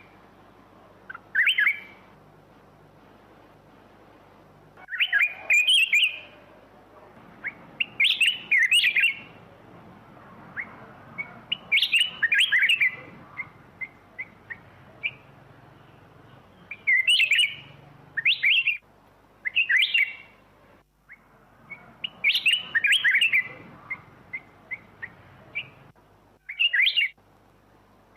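Black-crested bulbul singing: short, bright chirping phrases repeated every second or two, with single short notes scattered between them.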